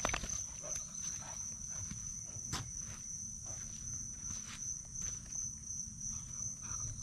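A steady high-pitched insect trill over a low rumble, with faint footsteps on wet ground and one sharp click about two and a half seconds in.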